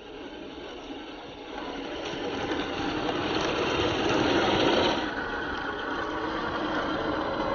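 Toy RC 4x4 jeep's battery-powered electric motor and gearbox whirring as it drives. The whirr grows louder after a second or two and drops back about five seconds in.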